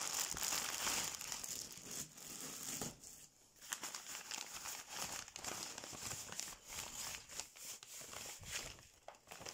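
A bag crinkling and rustling as something wrapped in it is unpacked by hand, with a short lull about three seconds in.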